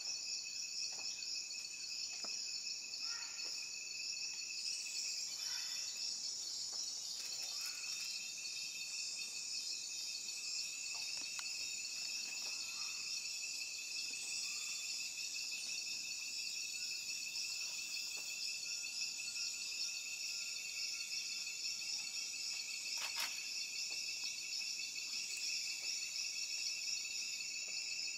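Rainforest insect chorus trilling steadily: a shrill, pulsing high band over a steadier, lower whine. A few faint short calls sit underneath, and there is a single sharp click late on.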